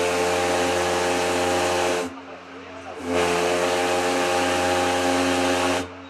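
Steamship Schaarhörn's steam whistle blown in two long blasts, each a steady tone over a loud hiss. The first is already sounding at the start and stops about two seconds in; the second starts about a second later and stops just before the end.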